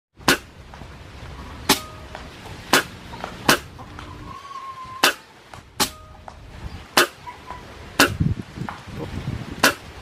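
A series of about nine sharp air rifle shots, each a single crack, spaced irregularly about a second apart.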